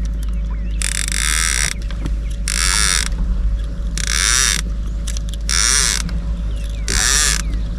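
Fishing reel clicker ratcheting in five short runs about a second and a half apart, as line is pulled off the spool in arm-length pulls to let out a bait.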